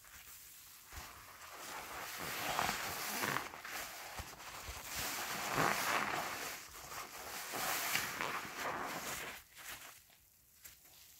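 Soapy sponge squeezed and kneaded in thick suds: wet squelching with fine foam crackling, in uneven swells. It dies down near the end.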